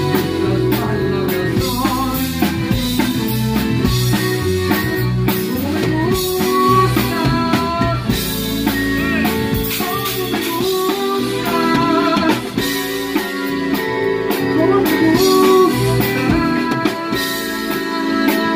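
A live band playing: an acoustic drum kit, heard close up, keeps the beat under electric guitars.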